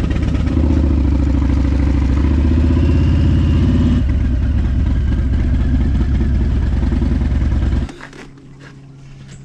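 2017 Harley-Davidson Road Glide's V-twin engine running with a steady low firing beat, then cutting off suddenly about eight seconds in, leaving a faint low hum.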